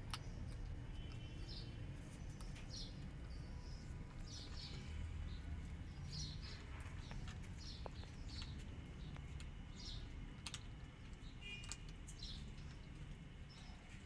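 Cats chewing dry kibble from a plate: an irregular scatter of small crisp crunching clicks. Short bird chirps come through in the background.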